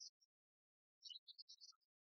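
Near silence, with faint, short, high-pitched chirps at the start and again from about a second in.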